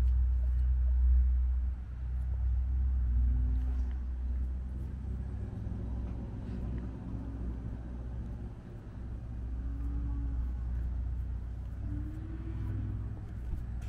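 A low, uneven rumble, loudest in the first two seconds. Several short, soft calls that rise and fall in pitch sound over it.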